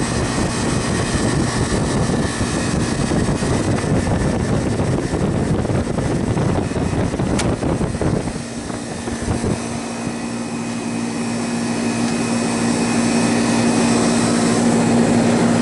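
Condensing unit running: the condenser fan's airflow rushes over the microphone along with the compressor. About eight seconds in, the rushing drops away and a steady hum from the running unit remains.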